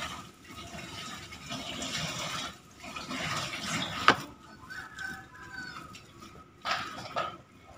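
Hands squeezing and mixing mashed boiled cassava with grated coconut and sugar in a plastic bowl, a soft wet squishing, with one sharp click about four seconds in.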